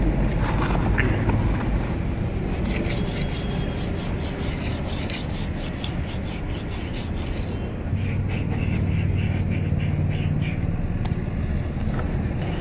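Quick, repeated scraping strokes of abrasive paper rubbed by hand along a chrome hydraulic cylinder rod, smoothing a brass weld repair over a scratch. A steady low hum runs underneath.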